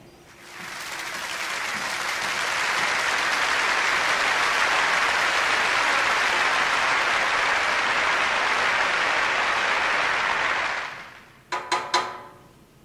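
Audience applauding. The clapping builds over the first couple of seconds, holds steady, then stops fairly sharply near the end, followed by three short pitched sounds.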